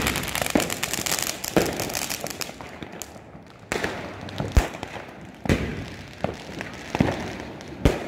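A ground firework fountain spraying sparks with a dense crackle that fades out about two and a half seconds in, followed by about half a dozen separate firecracker bangs.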